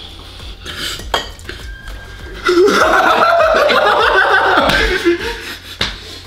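A man laughing loudly for about two seconds, starting partway in, with a few sharp clinks of cutlery against plates before and after.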